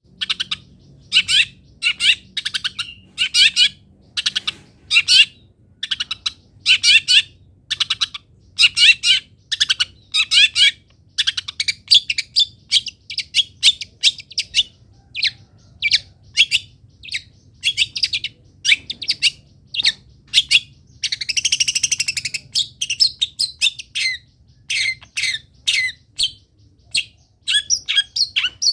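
Long-tailed shrike (cendet) singing a rapid string of short, scratchy chattering phrases, about one a second, with one longer harsh rasping call about two-thirds of the way through.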